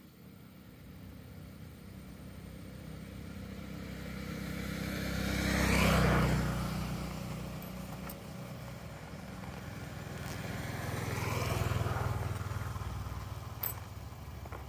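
Motor vehicles passing by one after another, each engine growing louder and then fading away, the first closest about six seconds in and the second a little before the end. A short sharp click comes just before the end.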